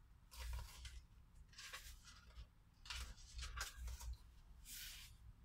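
Faint paper rustling as a thin paperback picture book is opened and its pages are turned and pressed flat by hand, in about five short brushes.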